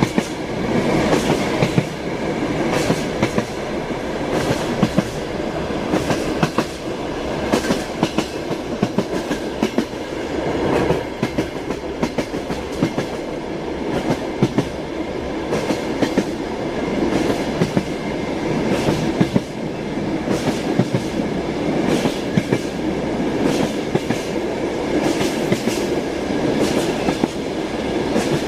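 Train wheels clattering on the rails: steady running noise with frequent, irregular clicks and knocks.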